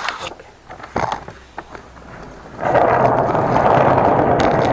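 A few clacks and knocks, then from a bit past halfway the hard wheels of a hand cart rolling steadily over a smooth concrete floor with a continuous rumble.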